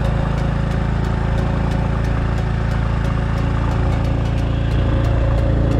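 An engine running steadily, with an even, unchanging pulse.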